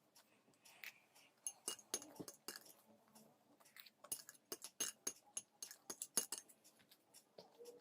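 Spoon clinking and scraping against a plate in many quick, irregular taps while poha (flattened rice) is scooped up and eaten, with faint chewing.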